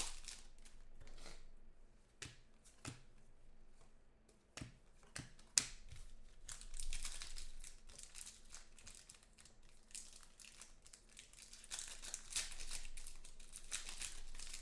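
Foil trading-card pack wrappers being crinkled and torn open by hand, with several sharp clicks in the first half and longer stretches of crinkling later on.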